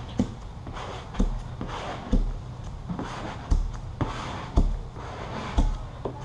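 Squeegee strokes over vinyl wrap film laid on a car hood: repeated swishing strokes, each with a dull thump, about one a second.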